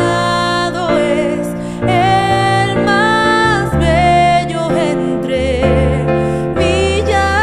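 A woman singing a slow worship song, holding long notes with vibrato, accompanied by piano chords played on a digital keyboard.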